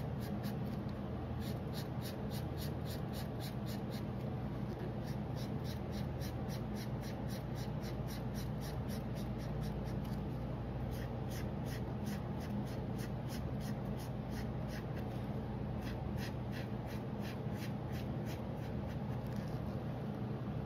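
A green colouring pen scribbling back and forth on drawing paper as it fills in a ring, in quick rhythmic strokes of about three to four a second, over a steady low hum.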